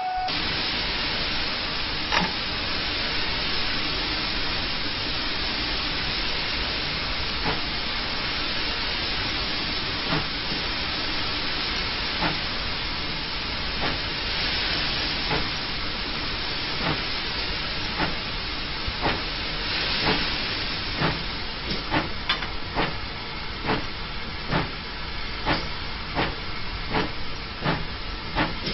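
GWR 0-6-0 pannier tank steam locomotive: a steady hiss of steam, with sharp beats over it. The beats start about two seconds in, a couple of seconds apart, and come quicker and quicker until there are about one and a half a second, as the locomotive gets under way.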